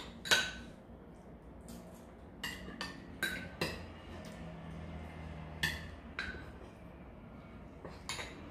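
Metal spoons clinking and scraping against ceramic bowls as rice is stirred, about ten separate sharp clinks with short rings, scattered irregularly.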